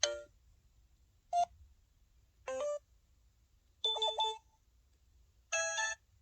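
SK-900 phone's 'Electric' (전자음) sound-effect set played one after another: five short synthesized electronic chimes, each a different brief jingle, separated by short pauses.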